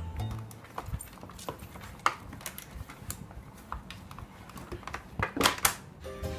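A puppy scrambling through a pet-door flap: scattered taps and clicks as the flap knocks against its frame, with a louder burst of clatter about five seconds in.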